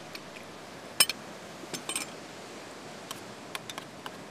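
A few light clicks and clinks of kitchen utensils and enamel dishware being handled, the sharpest about a second in, over a steady background hiss.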